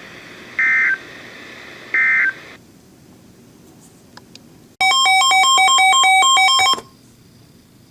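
Emergency Alert System end-of-message data bursts closing a flash flood warning broadcast: short, shrill digital chirps, twice about a second apart, over radio hiss that cuts off about two and a half seconds in. About two seconds later a loud buzzy electronic tone pattern, stepping between pitches, plays for about two seconds.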